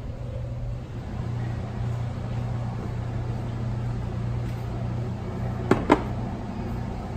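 Steady low mechanical hum, with two quick sharp clinks near the end as a ceramic plate of raw beef is picked up from its wire rack beside the metal grill.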